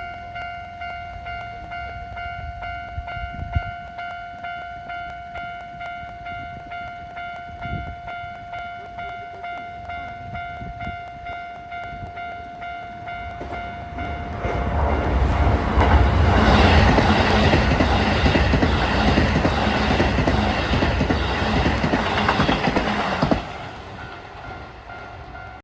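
Japanese level-crossing alarm ringing in a steady repeating pulse. About fourteen seconds in, a Keisei 3000-series electric train passes at speed, with loud rail noise and a rhythmic wheel clatter over the rail joints that drowns out the alarm. The train noise ends abruptly about nine seconds later.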